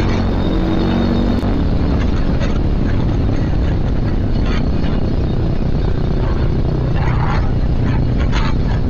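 Motorstar Z250R cafe racer motorcycle under way, its engine running steadily beneath a constant rush of riding noise, with a few brief higher noises near the end.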